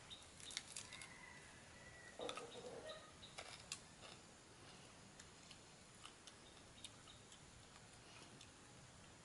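Faint crisp clicks and crunches of grilled chicken feet being bitten and chewed, with a short louder crackle about two seconds in.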